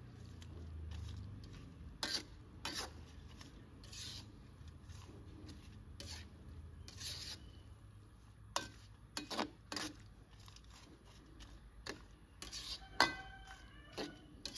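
Metal perforated skimmer scraping and clinking against a metal wok as bean sprouts are pushed and spread in it, in irregular strokes with the loudest clink, briefly ringing, near the end. A low steady hum runs underneath.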